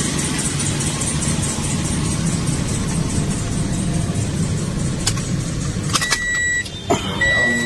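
Toyota Vios engine idling steadily, then switched off about six seconds in. A couple of clicks follow, then two short steady electronic beeps, a warning chime from the car.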